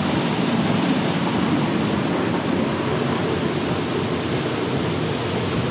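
Steady rush of stream water pouring over rocks at the top of a waterfall's cascades.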